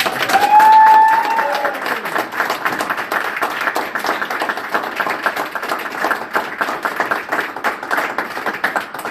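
People clapping and cheering: a loud, high whoop over the first two seconds, then steady applause.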